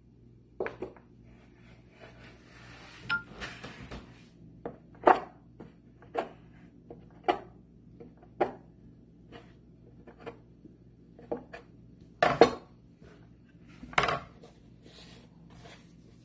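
Metal bench scraper chopping down through a rope of gnocchi dough onto a wooden pastry board, a sharp knock with each cut, roughly one a second; the loudest cut is a double knock about three quarters of the way through.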